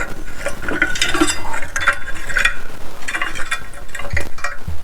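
Ratchet spanner clicking in short irregular runs as hand tools work on the motorcycle.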